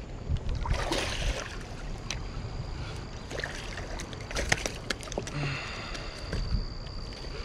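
A hooked catfish splashing in shallow water as it is reeled in against the rocky bank, with scattered sharp clicks and a steady low rumble of wind on the microphone.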